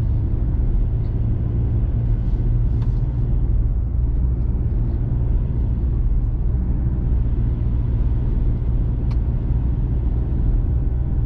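Four-wheel-drive truck driving up a cleared mountain road, heard from inside the cab: a steady low rumble of engine and tyres.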